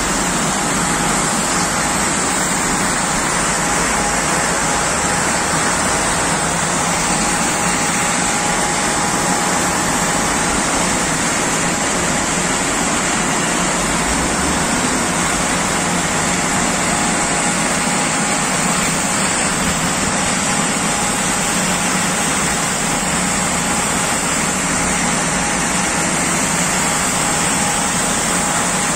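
Steady rushing noise of bulk washed salt pouring from a ship loader's chute onto a heap in a ship's hold, with the loading machinery running under it as a faint steady tone.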